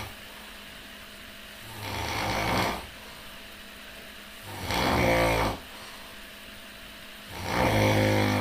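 A person snoring loudly in a steady rhythm: three snores, each about a second long, coming about every three seconds.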